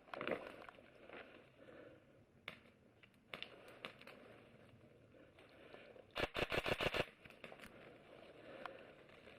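Airsoft rifle firing one short full-auto burst of about ten shots, roughly twelve a second, a little after the middle, with scattered single clicks and knocks around it.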